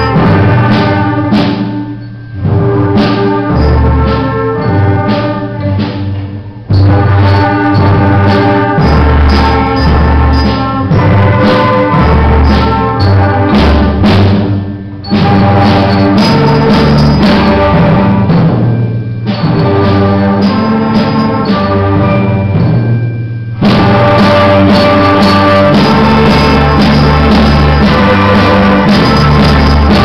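Youth orchestra of violins, flutes and clarinet playing a piece together, with held notes over deep low notes pulsing underneath.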